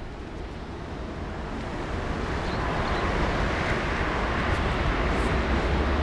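Strong wind gusting in through an open window, rushing and buffeting the microphone with a low rumble; the gust builds over the first few seconds and then holds.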